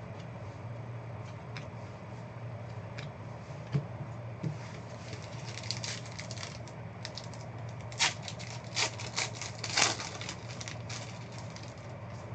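Trading cards and foil packs handled by hand: scattered light clicks, then a run of crackling, rustling handling noise about halfway through, loudest around eight and ten seconds in, over a steady low hum.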